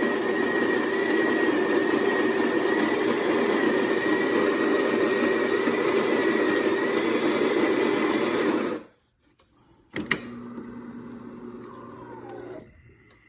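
DeLonghi fully automatic coffee machine's built-in grinder grinding beans with a steady high whine, stopping abruptly about nine seconds in. A sharp click follows, then a quieter motor hum for a couple of seconds as the machine moves on in its brew cycle, on a test run after the brew unit's lift rail was greased.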